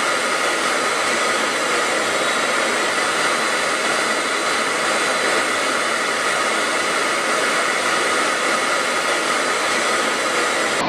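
Jet aircraft in flight: a steady, even rush of engine and airflow noise with a few faint steady whining tones.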